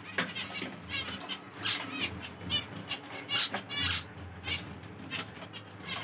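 Small aviary birds, budgerigars and finches, chirping and chattering in short repeated calls, with brief wing flutters among them.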